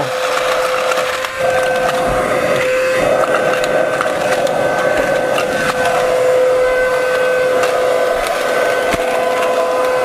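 Comfyer 22.2V cordless vacuum's motor running with a steady whine and rush of air, with a brief dip about a second in, as it sucks up marbles; a few faint clicks come through as they are drawn in.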